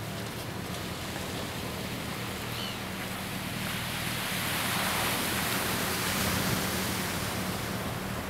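A steady outdoor wash of noise over a low, steady engine-like hum; the wash grows louder for a few seconds in the middle.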